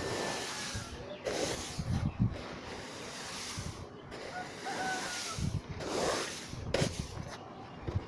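Paddy grain rasping over a concrete floor in repeated strokes of about a second each, with short pauses between, as the rice is spread out to dry. Faint bird chirps come twice.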